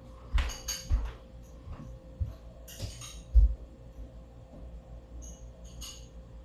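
Kitchen handling sounds: a series of knocks and thumps, the loudest about three and a half seconds in, with a few light clinks of dishes or glass.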